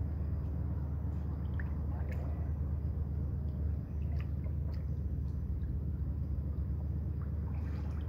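Small water splashes and drips from a person swimming slowly on their back in a pool, over a steady low hum.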